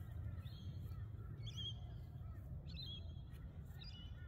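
Birds calling: short warbling calls about once a second, over a faint low rumble.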